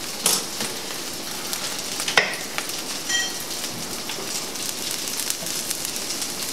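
Smoked chicken wings sizzling and crackling in a hot pan of melted butter and jalapeno pepper-jelly glaze. A sharp clink about two seconds in and a short metallic ring about three seconds in.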